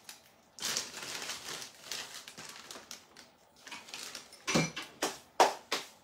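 Clear plastic bag crinkling and rustling as it is handled, followed near the end by a few sharp clicks and knocks, the loudest about five and a half seconds in.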